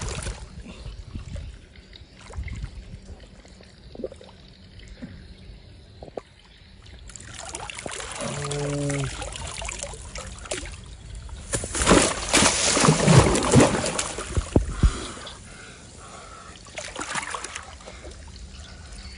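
Water splashing and sloshing, loudest in a burst from about 12 to 14 seconds in.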